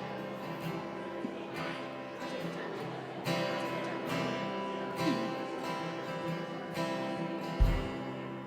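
Acoustic guitar strumming slow chords, a fresh strum every second or two, with a deep low drum hit near the end.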